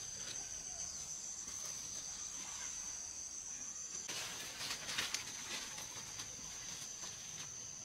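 Insects chirring steadily in one continuous high drone, with a brief rustle a little past four seconds in that is loudest around five seconds.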